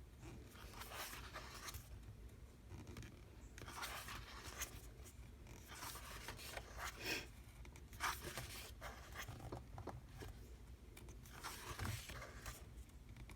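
Pages of a large photobook being turned and handled: paper rustling and sliding in short bursts every few seconds.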